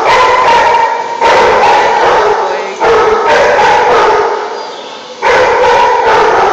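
Dogs barking in loud bursts, a new burst starting every second or two, echoing in a hard-floored room.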